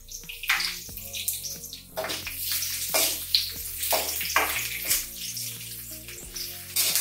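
Chopped onion sizzling in hot oil in an aluminium kadai, with a steel spoon scraping and knocking against the pan in repeated strokes as it is stirred. Background music plays under it.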